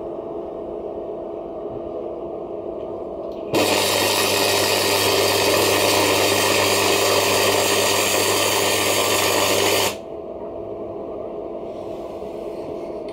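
MIG welding arc crackling steadily for about six seconds, starting about three and a half seconds in and cutting off suddenly, with a low electrical hum under it. Before and after the weld only a steady machine hum is heard.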